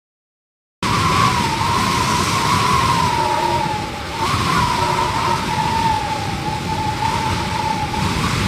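A siren-like high tone that holds nearly steady with a slight waver, over a dense rumbling noise. It starts about a second in, after a moment of dead silence.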